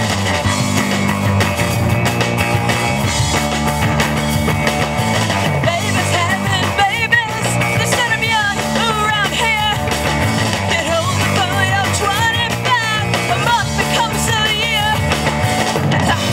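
Live rock band playing electric guitars, bass and drum kit, with a woman singing lead from about six seconds in.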